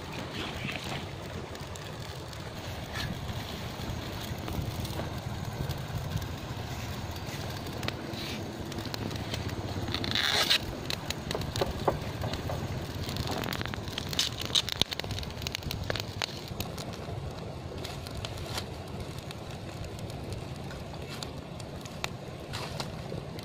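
Small wood cooking fire crackling under a steady low rumble of wind on the microphone. About ten seconds in there is a loud rustle from a banana leaf being handled over the pan, followed by scattered clicks and knocks.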